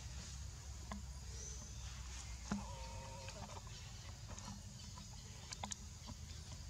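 One short animal call held at a level pitch for under a second near the middle, among scattered light clicks and rustles over a steady low rumble.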